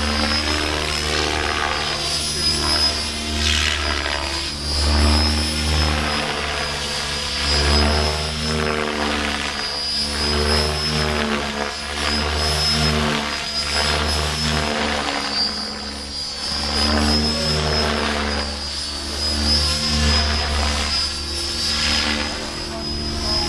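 90-size Compass 7HV radio-controlled helicopter in flight: a thin high whine over the rotor chop, its pitch and loudness swinging up and down every few seconds as it manoeuvres and passes.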